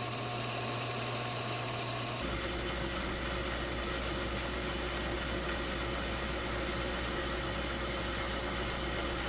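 A worn 1935 South Bend lathe running steadily while its cutting tool turns a bar of aluminium. The tone of the machine changes abruptly about two seconds in.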